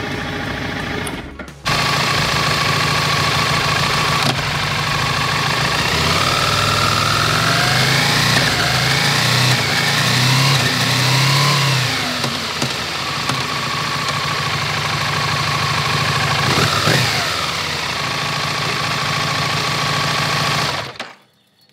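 Aprilia Falco SL1000's 1000 cc V-twin running, revved with its pitch rising in steps through clutchless quickshifter upshifts from second gear to about fifth, then falling back to a steady idle. The sound cuts off just before the end.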